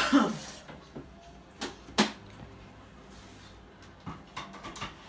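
Kitchen clatter of dishes and utensils being handled on a worktop: a clatter at the start, two sharp knocks about one and a half and two seconds in, and a run of lighter clicks near the end.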